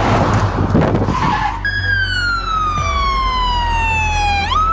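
A car rushing past, a loud noisy sweep that fades about a second and a half in. Then a siren wails: one long falling tone that swings sharply back up near the end.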